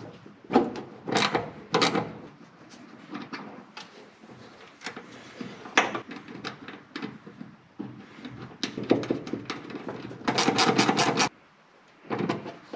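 Small metallic clicks, taps and scrapes of a wire's ring terminal being fitted onto a starter relay's terminal stud and its nut being worked on by hand. A denser rasping run lasts about a second near the end.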